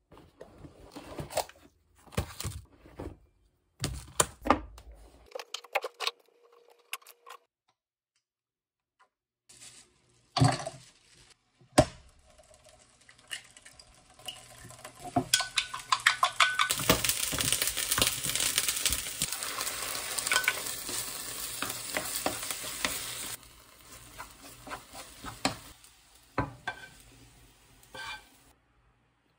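Kitchen cooking sounds: scattered knocks and rustles, then two sharp knocks, then chopsticks clicking against a glass bowl as eggs are beaten. Next comes egg fried rice sizzling and being stirred in a frying pan for several seconds. Near the end a spatula scrapes as the rice is slid out of the pan onto a plate.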